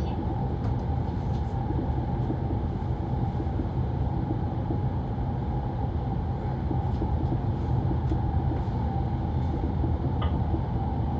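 Cabin noise inside a Kyushu Shinkansen 800 series train running at speed: a steady rumble of the wheels and running gear on the track.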